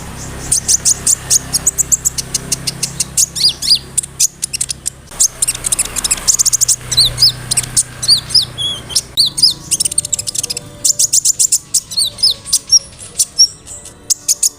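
Kolibri ninja sunbird singing a fast, high-pitched chattering song of rapid chirps, trills and clicks, with short pauses between phrases.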